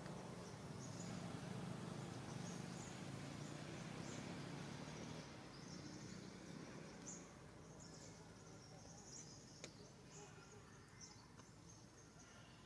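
Faint outdoor ambience of insects buzzing in short repeated high-pitched pulses, over a low hum that fades about five seconds in. A single sharp click comes about three quarters of the way through.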